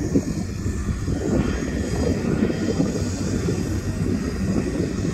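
Barge's diesel engines running hard under heavy throttle, a loud steady drone.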